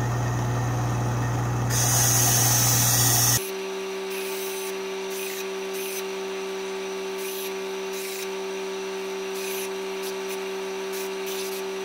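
Kalamazoo 1-inch belt sander running with a steady motor hum as the edges of a steel strip are deburred on the belt. A loud grinding hiss starts about two seconds in and stops suddenly about three seconds later. After that the hum goes on with short scrapes each time the strip touches the belt.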